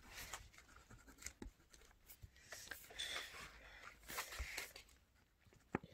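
Pen marking a paper workbook page: faint, scattered scratchy strokes, with one sharp tap near the end.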